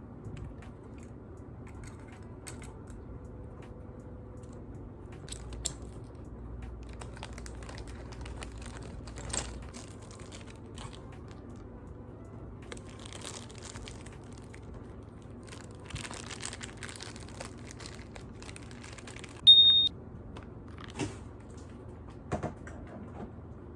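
Packaging being handled: on-and-off rustling and crinkling with scattered light clicks and taps. Near the end comes one short, high beep, the loudest sound here.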